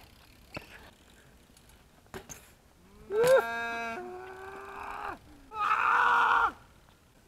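Two long, drawn-out, voice-like calls, each held steady and sliding in pitch at its ends. The first, about three seconds in, lasts about two seconds and drops to a lower note partway. The second is shorter and comes about a second later. Before them there are a couple of light clicks.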